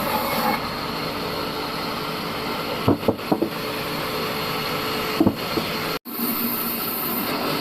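Sawmill bandsaw machine running steadily, with a few short knocks about three and five seconds in.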